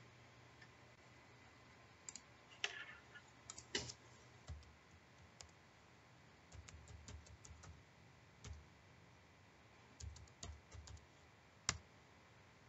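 Faint computer keyboard typing and clicks: scattered single taps, then two quick runs of keystrokes, about halfway through and near the end, with one sharper click just before the end.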